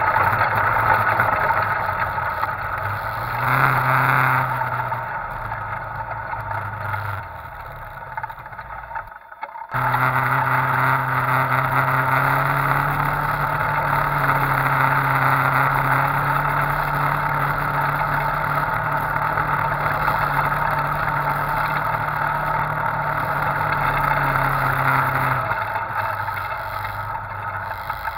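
Side-by-side UTV engine running steadily while driving over sand, with a brief rev about four seconds in. The sound cuts out for about half a second around nine seconds in, then the steady engine note returns.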